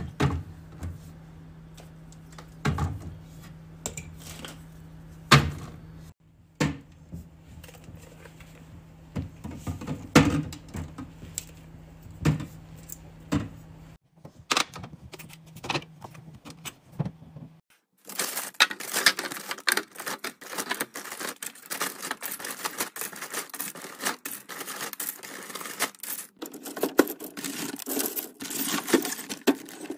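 Items and containers being handled and set down while organizing a fridge: a series of sharp clicks and knocks over a low steady hum. About halfway through, the hum stops and a dense run of crackling and rustling clicks takes over.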